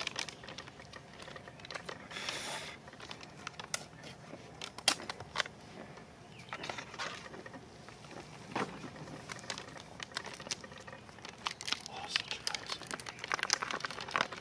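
Crinkling and rustling of a military ration (MRE) food pouch and its packaging being handled and opened, with scattered sharp clicks and short rustles.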